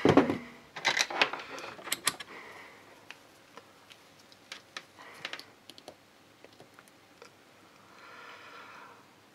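Clicks and light knocks of a handheld digital multimeter and its test leads being handled on a workbench. The loudest knocks come in the first two seconds, then sparse small clicks follow.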